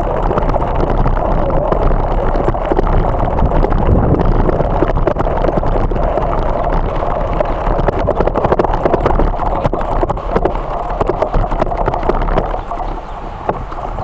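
Wind buffeting the microphone and tyres rumbling over gravel and grass while riding an electric bike, with many small knocks from bumps in the ground. It eases off a little near the end.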